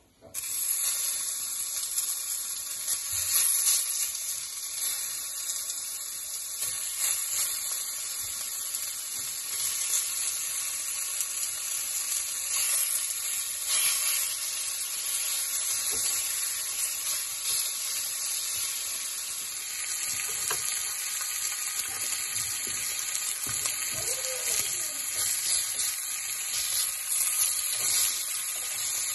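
Salted pork belly slices sizzling as they fry in a hot earthenware clay pot. The sizzle starts abruptly about half a second in, as the meat goes into the empty oiled pot, and then runs steadily.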